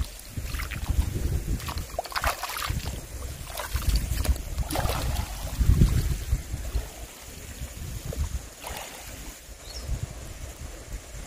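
Wind buffeting the microphone in gusts, a low rumble that rises and falls, over water lapping in the shallows. A few brief sharper sounds come about two, five and nine seconds in.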